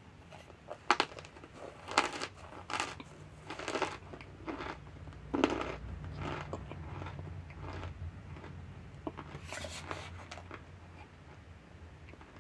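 Mouthful of dry cornstarch crunching as it is chewed: a run of sharp crunches through the first half, then quieter chewing, with another crunch a little before the end.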